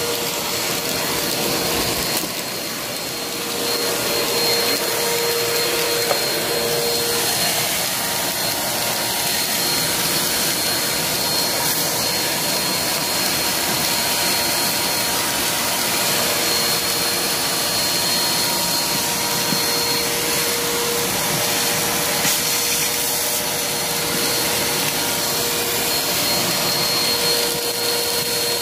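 Vacuum cleaner running steadily over a hardwood floor, its motor giving a constant whine over the rush of suction, with a brief drop in loudness about two seconds in.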